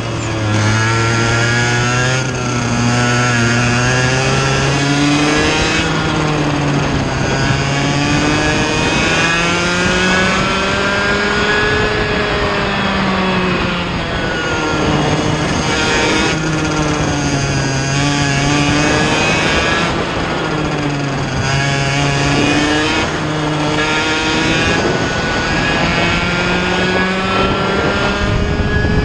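Vortex Mini Rok 60cc single-cylinder two-stroke kart engine at racing speed, heard onboard: its pitch climbs along the straights and drops as it slows for the corners, again and again.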